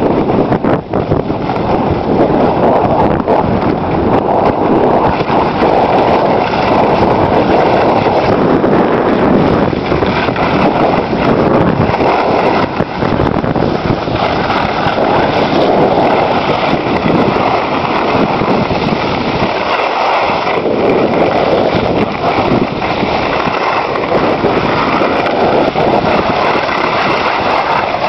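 Steady rushing wind noise on a moving skier's camera microphone, mixed with the hiss and scrape of skis sliding over packed snow during a downhill run.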